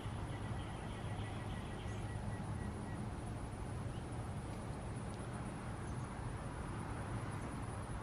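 Steady low rumble of outdoor background noise, even throughout, with a faint thin high tone in the first few seconds.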